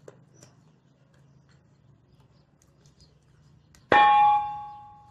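A single loud metallic clang about four seconds in, ringing on with several clear tones and dying away over about a second, after a few faint ticks.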